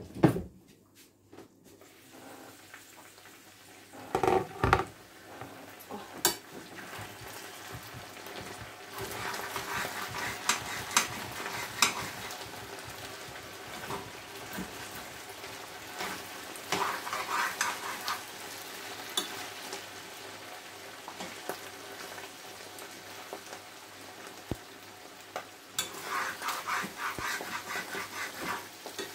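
Potatoes and chanterelle mushrooms sizzling as they fry in a frying pan. A glass pan lid is lifted off and set down with a clatter about four seconds in, then a spoon scrapes and stirs through the frying potatoes in several spells.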